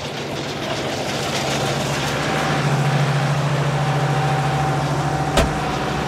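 Tractor engine running steadily while it drives the Vicon FastBale baler-wrapper combination during its automatic tying cycle. A thin whine joins about two seconds in, and there is a single sharp knock about five and a half seconds in.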